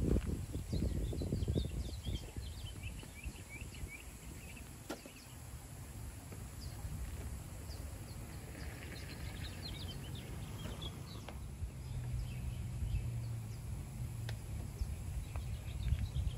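Outdoor ambience of birds chirping in quick, short calls over a low, uneven rumble, with a faint low hum for a couple of seconds about three quarters of the way through.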